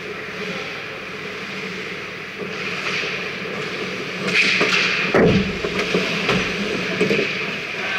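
Ice hockey skates scraping and carving the ice as players rush the goal, growing louder about four seconds in, with a heavy thud at the net about five seconds in and sharp stick-and-puck knocks after it.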